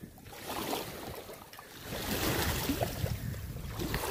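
Water splashing and lapping, an uneven rushing noise that grows louder about two seconds in.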